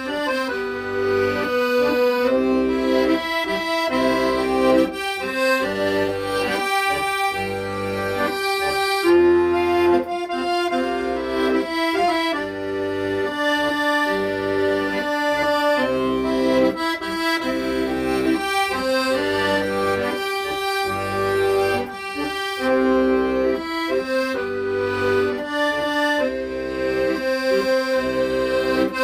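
Accordion playing a slow, sustained melody over chords, with regular bass notes underneath.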